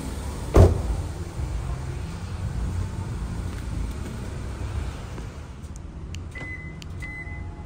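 A car door slammed shut once, a single loud thud about half a second in, followed by a low steady rumble in the background and two faint high beeps near the end.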